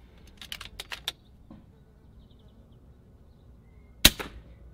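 A single shot from an FX Impact MKII .177 PCP air rifle about four seconds in: one sharp crack, with a fainter crack a split second after it. A few light clicks come about half a second to a second in.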